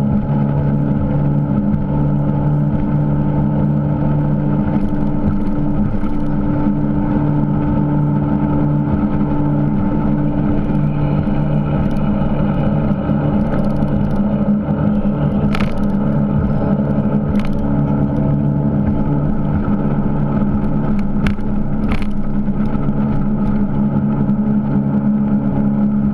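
Motorboat engine running steadily at an even speed, with a few short clicks or knocks about two-thirds of the way through.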